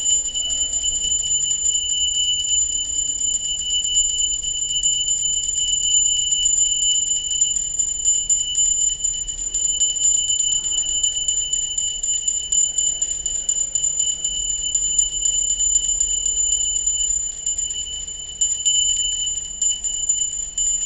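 Small brass puja hand bell rung rapidly and without pause through an aarti, a steady bright ringing held at two clear pitches.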